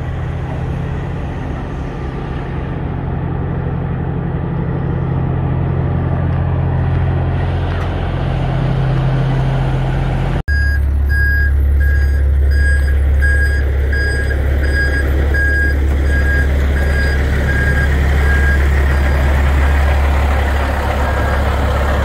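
Heavy diesel truck engine idling steadily, with a vehicle's reversing alarm beeping a little over once a second. The alarm is faint at first and louder after about ten seconds in.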